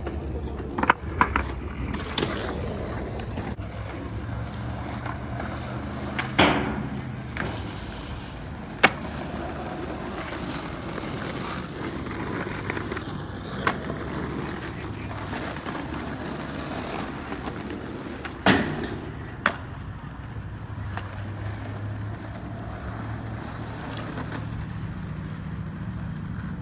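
Skateboard wheels rolling over ramps and concrete, with a few sharp clacks of the board striking the ground, the loudest about six and a half and eighteen and a half seconds in.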